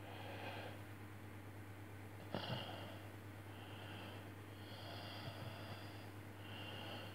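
Faint scratching of a mechanical pencil drawing on paper in several short strokes, over a steady low electrical hum, with one brief louder tap about two and a half seconds in.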